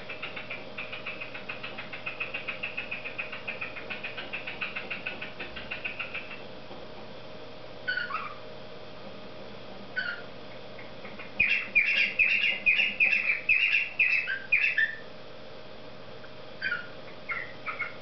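Grey cockatiel singing: a fast chattering warble at first, then a couple of short falling whistled calls. A louder burst of rapid warbling follows from about eleven to fifteen seconds in, with more short calls and chatter near the end.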